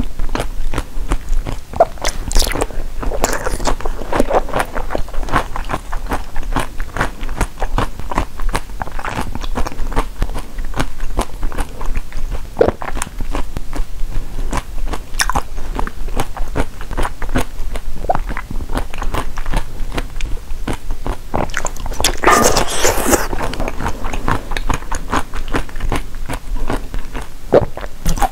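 Close-miked biting and chewing of a clear jelly packed with pomegranate seeds: wet crunching with many sharp clicks, and one louder, longer burst a little over twenty seconds in.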